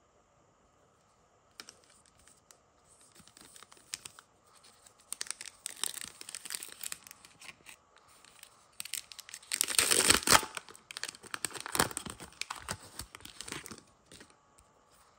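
A foil trading-card pack crinkling in the hands and being torn open along its seam. It starts after a short quiet moment, with the loudest tearing a little past the middle.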